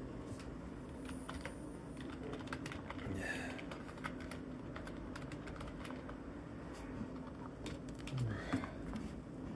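Quiet sick-person sounds from a person's nose and throat: a short sniff about three seconds in and a brief throaty sniffle near the end, with many small clicks throughout.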